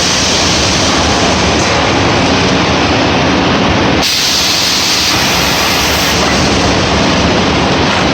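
Industrial pellet packaging machine running: a loud, steady mechanical noise with a strong hiss, which shifts abruptly about four seconds in and again about six seconds in.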